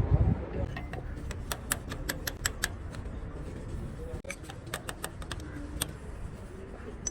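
Irregular sharp metallic clicks and clinks, a few a second, of tools and engine parts being handled, over a low background rumble.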